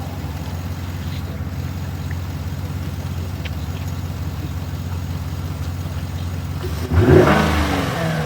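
High-mileage truck engine idling steadily, then revved once about seven seconds in, its pitch sweeping up and falling back. The engine is being run after its wiring and fuses were cleaned to cure a bank of cylinders that weren't firing.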